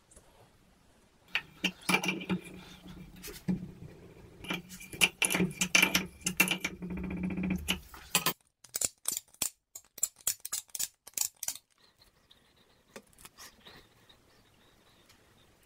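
Brass fittings and metal tools clinking and clattering as they are handled on a workbench, over a steady hum that cuts off about eight seconds in. A quick run of sharp clicks follows for about three seconds, then a few faint clicks.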